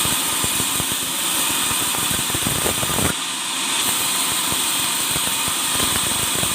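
A power tool running steadily while working wood, with a dense, rough rattle under a hiss. The sound changes abruptly about three seconds in.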